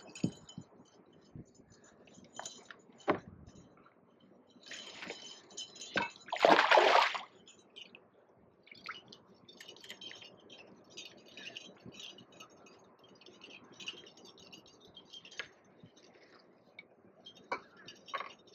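Water splashing and wet handling noises as a hooked carp is brought in to the bank: scattered clicks and rustles, one louder rush of noise about six and a half seconds in, then a run of small rapid ticks.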